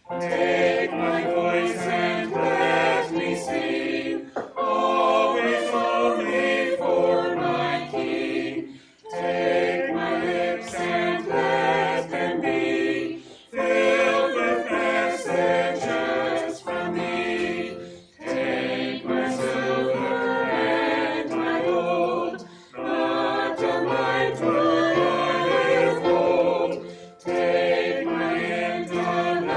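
Choir singing, in phrases of a few seconds each with short breaks between them.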